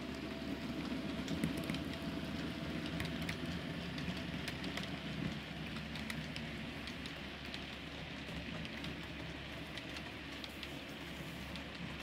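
Model trains rolling along the layout's track: a steady rolling rumble and motor hum scattered with many light clicks, a little louder in the first few seconds and easing after about six seconds.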